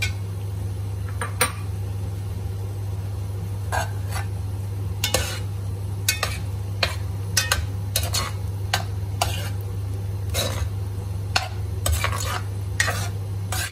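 Metal ladle scraping and clinking irregularly against a pan while stirring pork belly into sizzling coconut-milk curry paste. A steady low hum runs underneath.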